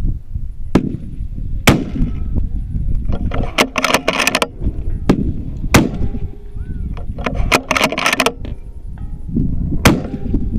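Precision rifle firing three loud shots about four seconds apart, with bursts of clatter between the shots and a steady low rumble underneath.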